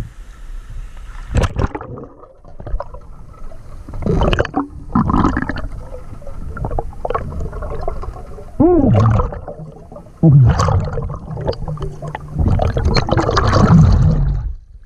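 Water gurgling and bubbling around a camera carried under a river's surface, in several loud surges a few seconds apart.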